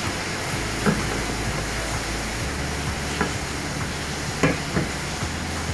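Butter sizzling in a hot frying pan, with a few light knocks of a utensil against the pan.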